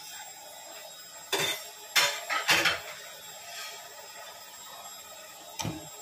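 Stainless steel pot lid and cookware clinking and clattering as they are handled on the stove. There are a few sharp metallic knocks about a second in, a cluster around two to three seconds, and one more near the end, over a low steady hiss.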